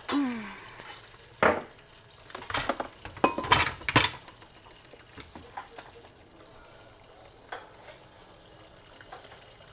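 Kitchen pots, pans and utensils knocking and clattering, a few loud knocks in the first four seconds, then quieter handling.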